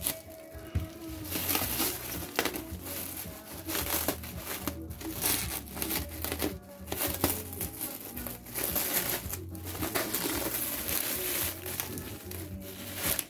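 Clear plastic film crinkling and rustling in repeated bursts as it is pulled off a bookshelf loudspeaker cabinet, with music playing in the background.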